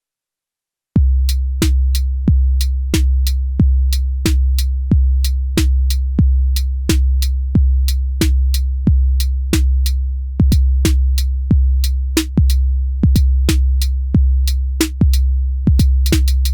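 Elektron Syntakt drum machine playing a steady beat, starting about a second in. A long, deep, sustained kick drum falls about one and a half times a second, with short crisp hi-hat-like clicks between the kicks.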